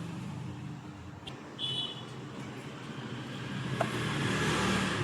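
Road traffic with a steady low rumble of engines, and a short horn toot about one and a half seconds in.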